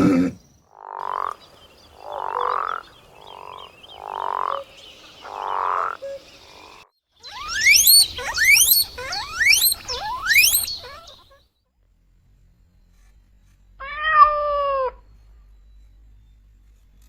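A run of animal calls from three different clips. First come about six evenly spaced, croak-like calls, then four quick squeals that rise in pitch, and near the end a single short call that falls in pitch.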